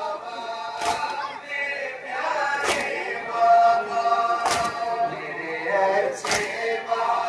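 Men's voices chanting a Shia noha together, with a sharp stroke of hands striking chests (matam) about every two seconds in time with the chant.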